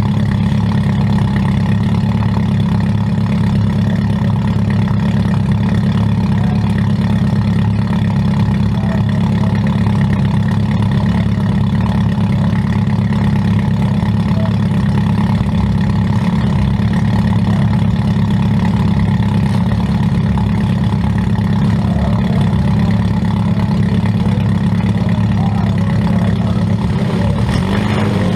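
Demolition derby compact car's engine idling steadily, heard from inside the stripped-out cabin.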